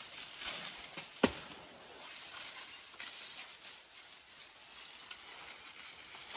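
Faint rustling and scuffling with one sharp crack about a second in, the loudest sound.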